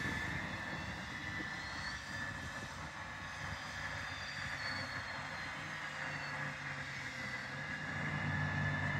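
John Deere rubber-tracked tractor's diesel engine running steadily under load as it pulls a seed drill, a low drone with a high whine on top. The drone grows louder near the end.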